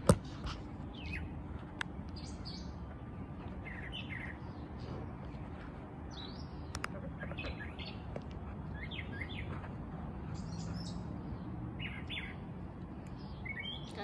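Backyard songbirds chirping, short calls coming every second or two over a steady low background rumble. A single sharp click right at the start.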